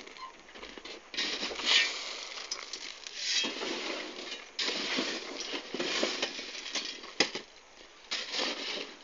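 Loose road stone chips crunching and clinking in irregular bursts of about a second each, under wheelbarrows and workers' feet.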